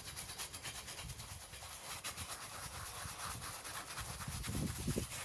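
Stiff-bristled scrub brush scrubbing a cast iron bench frame with soapy water, in quick repeated back-and-forth strokes, with a few dull knocks near the end.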